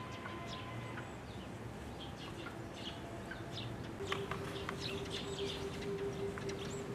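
Small songbirds giving many short, high chirps and call notes, busier in the second half. A steady low hum comes in about halfway through.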